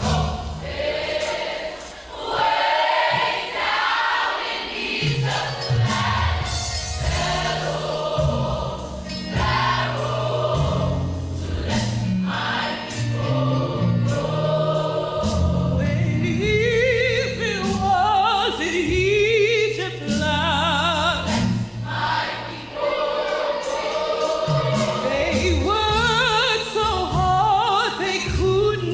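Choir singing a gospel-style song with instrumental accompaniment and a bass line moving in steps beneath the voices; from about the middle on, sustained notes with vibrato stand out.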